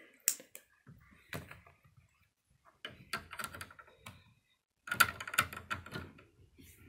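Plastic Lego pieces clicking and clattering as a hand handles and fits a small part. A few scattered clicks, then quicker runs of clicks about three seconds in and again about five seconds in.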